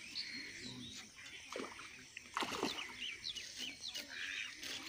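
A hooked fish splashing and thrashing at the water's surface as it is played in close to the bank, loudest about halfway through. Small birds chirp throughout.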